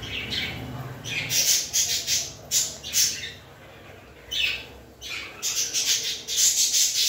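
Small plastic toy spoon scraping and stirring inside a plastic toy pot: a run of short, irregular scrapes, some in quick clusters, with a brief pause midway.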